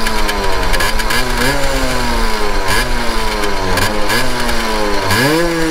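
Simson S51 moped's single-cylinder two-stroke engine being revved while standing still. It gives about five throttle blips, each climbing quickly in pitch and then sinking slowly back down.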